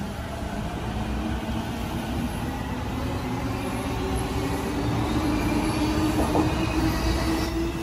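Electric commuter train pulling out of the station: its traction motors give a whine that rises slowly in pitch as it gathers speed, over the rumble of wheels on rail, growing louder toward the end.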